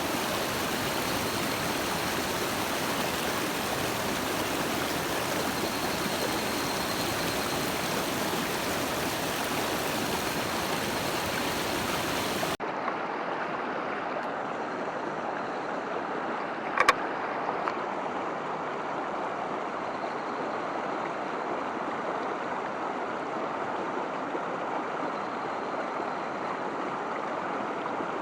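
Mountain stream water rushing steadily. About twelve seconds in the sound changes abruptly and becomes thinner and less deep, and a brief sharp click about seventeen seconds in is the loudest thing.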